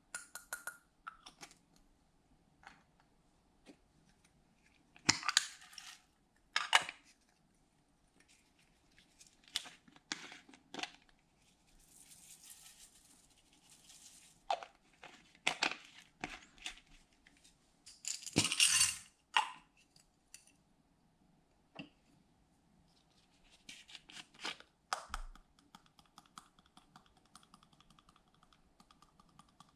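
Glitter, sequins and small plastic beads being shaken and poured into glass baking dishes: scattered clicks and short rattles, a soft hissing pour, and a louder, denser rattle about two-thirds of the way through.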